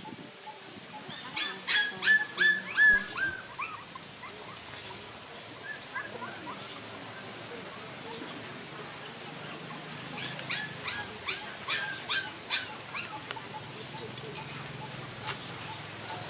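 Puppy whimpering in two bouts of rapid, high-pitched cries, each cry falling in pitch. The first bout comes about a second in and the second about ten seconds in.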